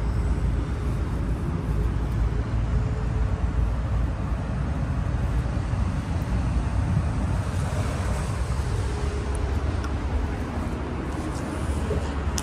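Steady low outdoor rumble with an even hiss above it.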